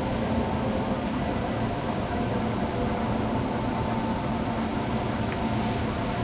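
Steady hum of an electric blower fan running, with a faint whine held on one pitch.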